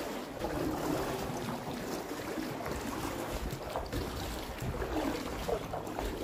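Water sloshing around a canoe being paddled, with wind rumbling on the microphone.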